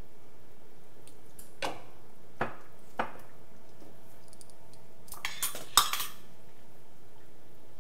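Metal kitchen utensils and a metal measuring spoon clinking against a stainless steel stockpot: three single clinks in the first half, then a quick cluster of clinks about three quarters of the way through, the loudest of them.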